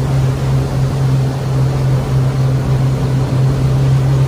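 Twin engines of a 2001 Sea Ray 340 Sundancer express cruiser running at cruising speed, about 4,500 RPM, a strong steady low drone over a steady rushing noise.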